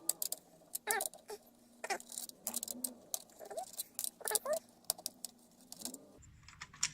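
Screwdriver taking out the screws that hold a motherboard in a computer case: scattered metallic clicks and rattles, with a few short squeaks.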